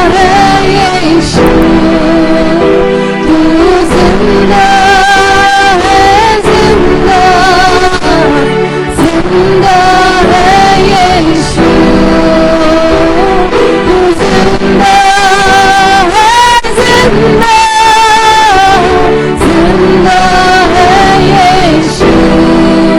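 Hindi Christian worship song: a melody of held, wavering notes, sung or played, over a band's steady chords.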